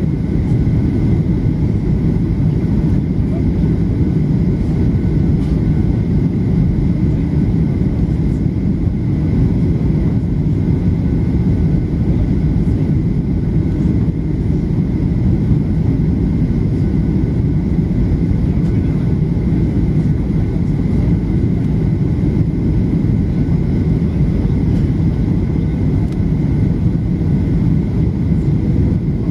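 Steady cabin noise of a passenger jet airliner descending on approach: a constant low rush of engines and airflow past the fuselage, with a faint steady whine on top.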